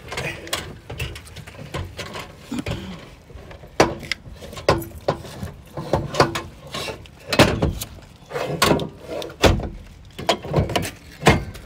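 Jack-It bike rack parts being worked into place on a trailer tongue jack: a hard plastic jack cover and the metal rack arm knock, click and rattle against each other in irregular strokes, with a few sharper knocks among them.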